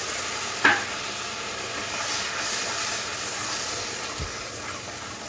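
Masala gravy, freshly thinned with coconut water, sizzling and simmering in a steel kadai as a steady hiss, with a short knock under a second in.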